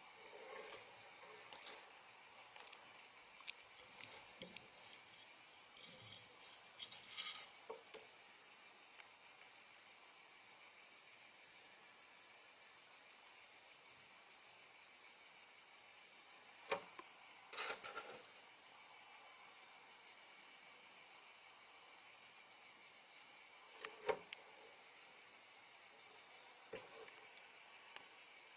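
Feeder crickets chirping steadily in a rapid, even trill, with a few short taps and clicks scattered through it.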